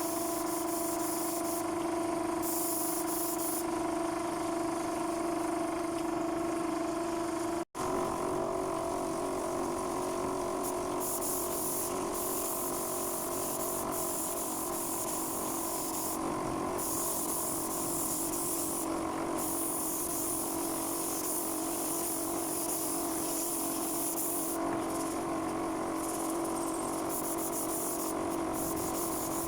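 Spray gun hissing in on-and-off bursts of several seconds each, spraying a wood finish (sanding sealer or top coat), over the steady hum of an air compressor running.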